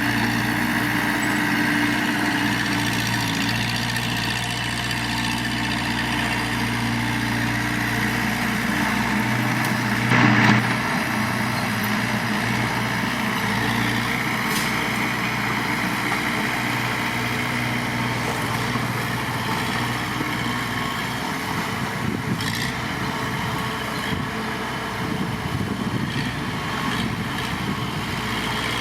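Heavy diesel earthmoving engine running steadily, with a brief louder surge about ten seconds in.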